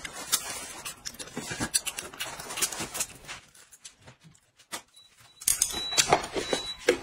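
Close-up eating sounds: glass noodles slurped and chewed, with short sniffs and breaths, going quiet for a couple of seconds in the middle. Near the end comes handling of a cup's lid.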